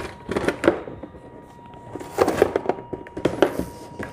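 A long cardboard airgun box being handled and flipped over on a tabletop, making three bunches of scraping and knocking. A faint steady high whine runs underneath.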